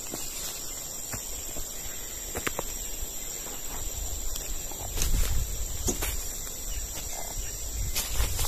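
Steady high-pitched drone of tropical forest insects, with scattered sharp clicks over it and a low rumble about five seconds in and again near the end.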